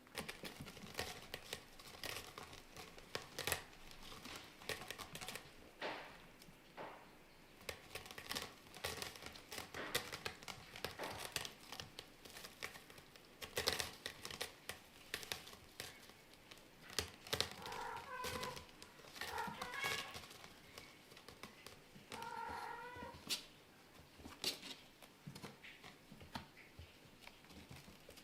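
Scottish Fold × British Shorthair kittens, with a steady scatter of small clicks and crackles and three short meows about two-thirds of the way through.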